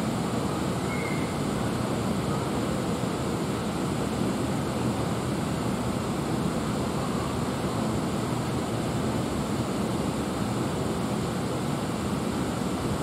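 Steady low rumble and hiss with no distinct events: even waterfront background noise.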